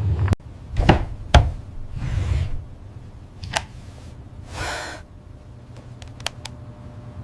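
A few sharp wooden-sounding knocks and thuds, the loudest about a second in, with two short swishes, over a steady low hum.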